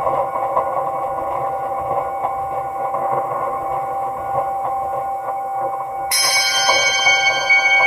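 Ambient electronic music: a steady drone of held tones with a faint, fast, even pulse. About six seconds in, a bright bell-like chime strikes and rings on.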